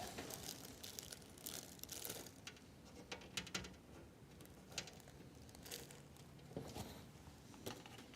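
Faint, scattered clicks and scrapes of metal parts being handled as a power supply is screwed into its mounting points in a computer case.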